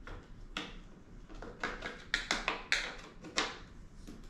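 SwellPro Splash Drone 3+ body and parts being handled during assembly: a run of sharp clicks and scrapes, bunched in the middle.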